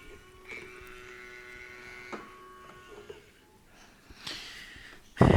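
Electronic sound effect from a Tonka toy recycling truck's small speaker: a thin, steady buzzing tone for about three seconds with a click partway through. A loud thump follows near the end.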